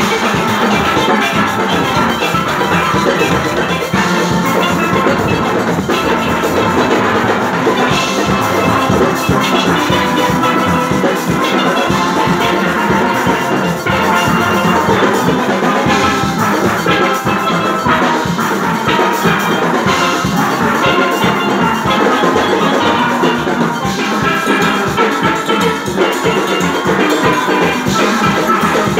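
Steel band playing: many steel pans sounding together over drums and percussion, loud and continuous.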